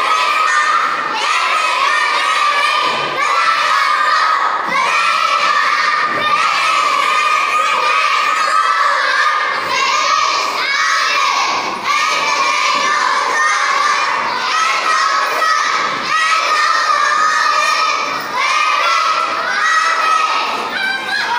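A class of young children praying aloud together in unison, a loud, level chant of many voices with short breaks every second or two.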